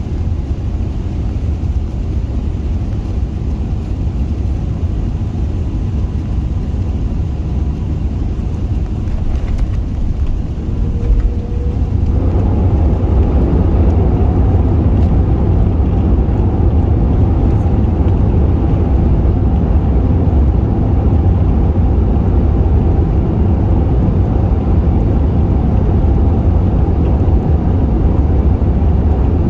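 Airbus A380 cabin noise on landing: a steady low rumble of final approach, a short jolt about eleven seconds in as the aircraft touches down, then a louder, fuller rumble of the landing roll.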